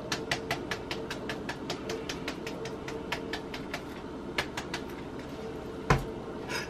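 A grated Parmesan shaker can being shaken over a plate of food in quick, even shakes, about six a second, which thin out and stop about five seconds in. A single knock near the end, over a faint steady hum.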